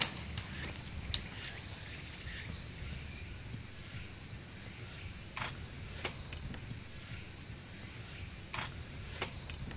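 Faint outdoor ambience: a low steady rumble with a few scattered short clicks.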